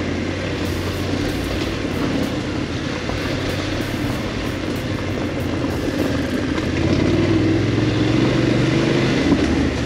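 BMW F850GS parallel-twin motorcycle engine running under way on a dirt track, over a steady haze of riding noise. About seven seconds in, the engine speeds up and gets louder.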